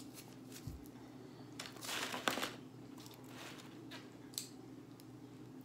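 Aluminium foil wrapped around large burritos crinkling as the burritos are held and shifted in the hands: a few short rustles, the longest about two seconds in, over a faint steady hum.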